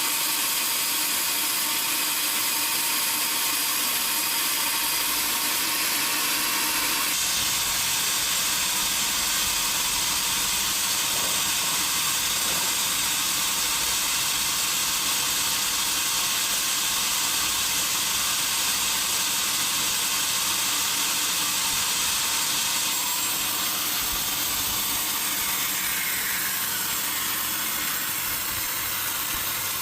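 Sawmill saw cutting through a teak log, a steady high-pitched cutting noise that grows fuller a few seconds in and eases off slightly near the end, with a brief falling whine.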